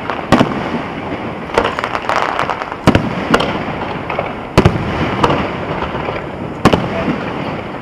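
Fireworks going off: about seven sharp bangs at uneven intervals of roughly a second, over continuous crackling and rumbling from other bursts.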